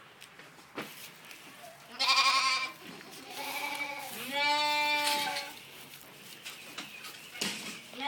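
Young farm animal bleating: a short, quavering bleat about two seconds in, then a fainter call and a longer, steadier bleat lasting about a second.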